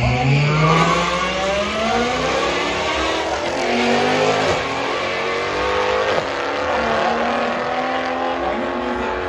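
Drag-racing cars accelerating hard away down the strip. Their engine pitch rises, drops at the gear changes about three seconds in and again about six seconds in, then climbs again.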